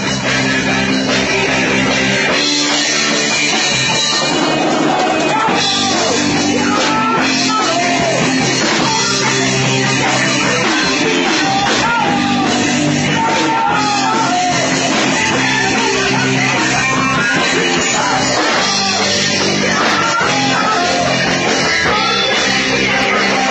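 Rock band playing live: electric guitar, bass guitar and drum kit, loud and steady, with a voice singing a wavering melody over them.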